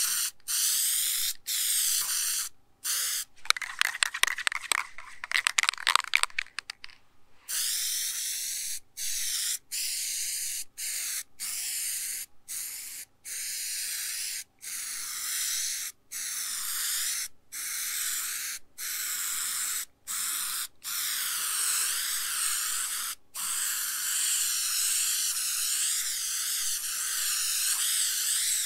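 Aerosol spray adhesive hissing from the can in repeated short bursts onto fabric, with a few seconds of rapid rattling clicks early on and one long continuous spray near the end.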